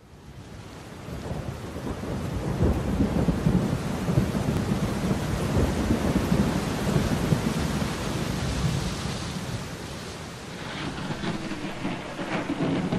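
Recorded rain-and-thunder effect fading in from silence: a steady hiss of rain under low rolling thunder. It opens the song track, and faint music notes begin to enter near the end.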